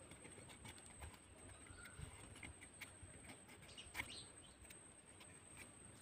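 Near silence, with a few faint clicks and taps, the sharpest about four seconds in, and faint bird chirps; no engine is running.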